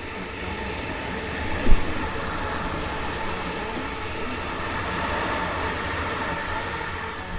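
Electric passenger train running through the station, a steady rail and motor noise with a few held tones that swells and then eases slightly. A single sharp thump about two seconds in is the loudest moment.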